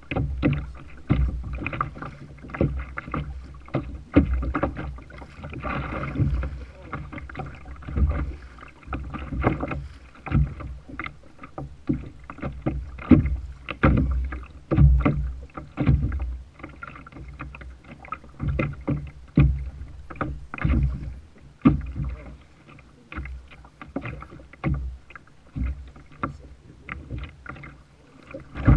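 Choppy sea water slapping and knocking against a plastic fishing kayak's hull: irregular thumps and splashes several times a second over a steady low rumble.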